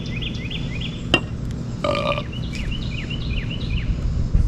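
Steady low outdoor rumble with a bird singing two runs of short, quickly repeated chirps. A sharp click comes about a second in and a short low pitched grunt-like sound about two seconds in.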